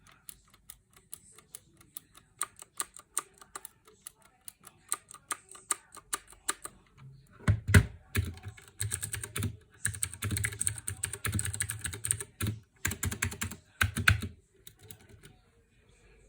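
Typing on a compact mechanical keyboard with clicky blue-type switches: sparse keystrokes at first, then a fast burst of typing from about halfway through, with a few louder strokes, before it slows again near the end. The switches are loud and clicky, the noisy switch the owner returned it for.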